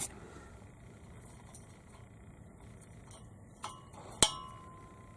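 Two light metallic clinks about half a second apart, the second louder with a short ring, as a digital angle gauge is set against the steel driveshaft to read its angle.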